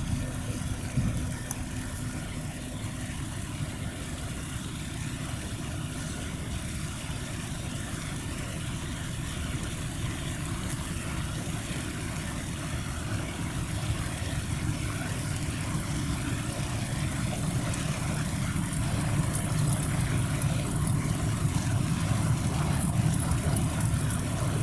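Low, steady engine rumble of a passing river cruise ship, growing gradually louder over the second half as the ship moves past.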